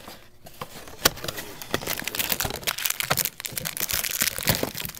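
Camcorder packaging being handled and unwrapped, crinkling and crackling in a dense run of sharp clicks, with one louder snap about a second in.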